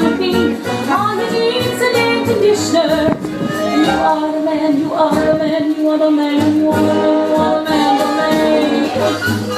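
Song with singing over a steady beat: the voice holds long notes that glide, and no words can be made out.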